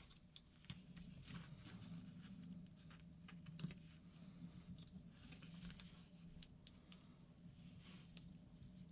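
Faint, scattered light clicks and taps of small paintball marker parts and tools being handled during disassembly, over a low steady hum.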